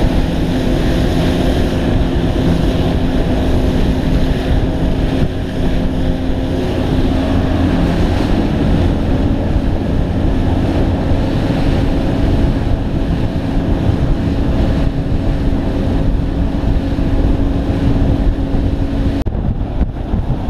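Outboard motors of a Shark Cat catamaran running steadily at cruising speed, with water rushing past the hull and wind buffeting the microphone. Near the end the engine tone drops away, leaving mostly wind and water noise.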